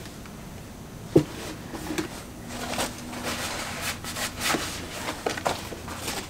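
Handling noises while working with an eyeshadow palette: one sharp knock about a second in, then a run of soft rustles and light taps.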